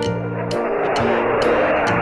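Background music with a steady beat, about two strokes a second, over a dense rushing wash of sound.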